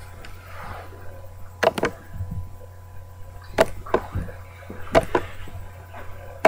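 A smartphone handled and tapped close to the microphone: several sharp clicks, mostly in pairs, over a steady electrical hum.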